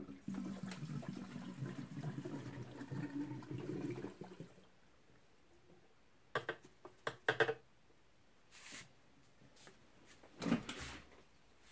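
Fuel being poured into the tank of a Stihl 034 AV chainsaw, a gurgling pour for about four and a half seconds whose pitch rises as the tank fills. Then a few sharp clicks and, near the end, a knock.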